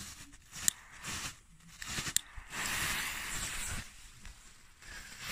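Blitz-Donner flash tablets (small Category 1 fireworks) burning on paving: a hiss of burning, with two sharp cracks about a second and a half apart.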